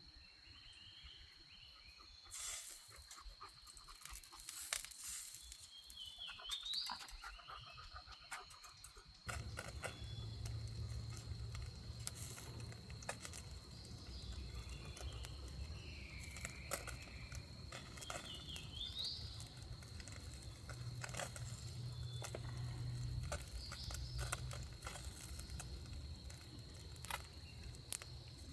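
Campfire crackling in scattered clicks, over a steady high-pitched insect drone and a few bird chirps; a low rumble joins about nine seconds in.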